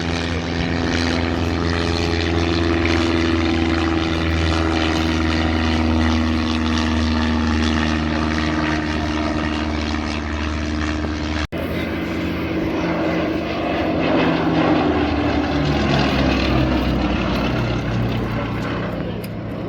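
Propeller aircraft's piston engine flying past, a steady drone whose pitch slides slowly lower. The sound breaks off for an instant about eleven seconds in, and the engine tone shifts after it.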